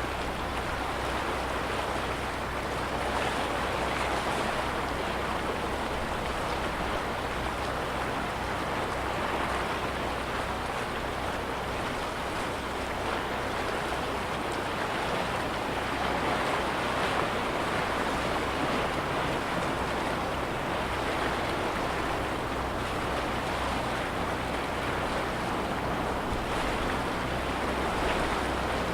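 Small lake waves lapping against the shore: a steady wash of water that swells and eases slightly.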